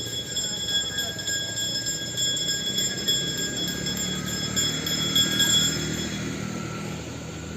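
A temple bell ringing continuously as part of a ritual, over a low murmur of voices; the ringing fades out about six seconds in.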